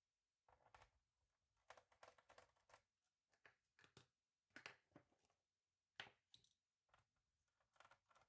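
Faint, irregular clicks and short scrapes of small hard plastic and metal parts being handled, as in working on a laptop's case.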